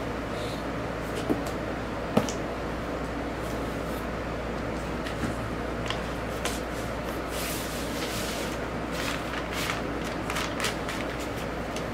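Paper rustling with a few light knocks as a printed paper record insert and a cardboard album jacket are handled, over a steady background hiss and low hum.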